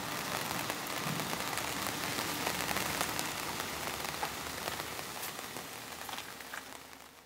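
Rain falling: an even hiss dotted with small ticks of drops, fading out near the end.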